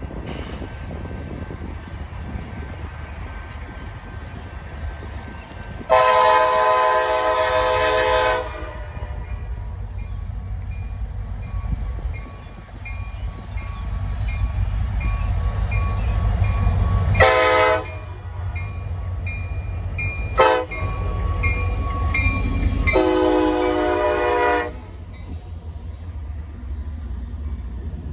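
CSX EMD SD70MAC diesel locomotive sounding its multi-chime air horn: a long blast about six seconds in, a short blast around seventeen seconds, a quick toot a few seconds later, and a final long blast, over the steady low rumble of the approaching diesel.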